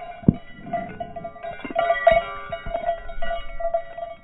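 Music: plucked-string notes ringing over a steady held tone.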